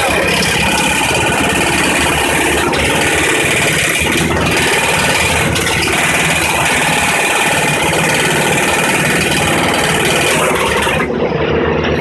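Wood chipper's engine running loud and steady, with a rushing hiss over the engine note that drops away suddenly about eleven seconds in.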